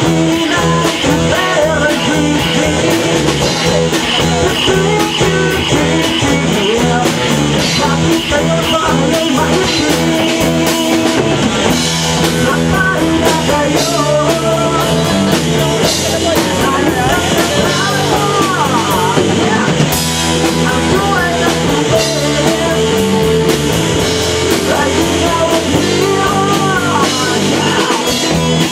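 Rock music playing at a steady loud level: guitar and a drum kit with a singing voice.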